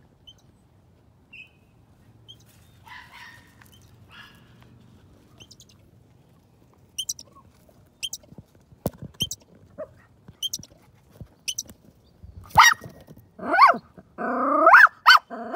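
Dog whining and yipping, excited at a squirrel hiding under the shed. The pitched cries come in loud bursts over the last three seconds, after a run of short sharp high clicks about every half-second.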